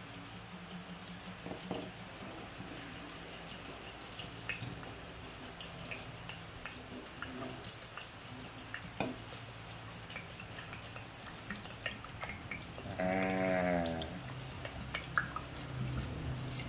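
Vodka poured in a thin stream from a glass bottle into a large glass jar of peaches and rock sugar: a faint steady trickle with many small splashing ticks. About two-thirds of the way through, a short pitched call about a second long, like a bleat, is the loudest sound.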